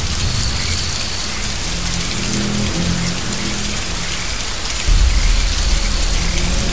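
Heavy, steady rain, with low sustained notes of a music score beneath it. About five seconds in, a deep low rumble comes in suddenly and stays.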